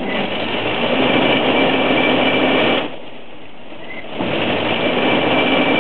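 Fortschritt E 512 combine harvester running, its engine and threshing machinery giving a steady mechanical din with a faint high whine. The sound dips for a little over a second about three seconds in, then comes back up.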